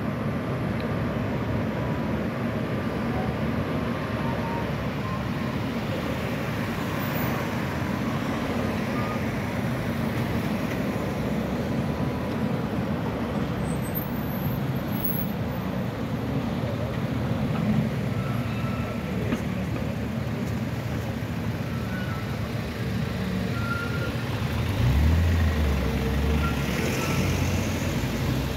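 Steady city street traffic noise from cars and trams passing along a tram-lined road. Near the end there is a louder low engine rumble as a car passes close by.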